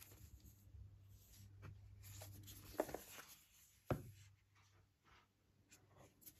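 Fingers rubbing and sliding on the paperboard AirPods 3 box as it is handled and turned over, with two light knocks about a second apart around the middle. The sound is faint and scratchy throughout.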